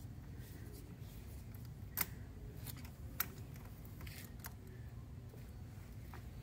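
A few sharp, irregularly spaced metallic clicks over a low steady hum, the clearest about two and three seconds in: a hand socket wrench on a long extension backing off the nut of a V-band clamp, then hands handling the loosened clamp.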